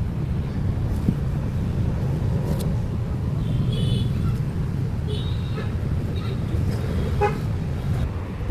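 Steady low rumble of a running motor vehicle engine, with short high-pitched toots about three and a half seconds in and again near five seconds.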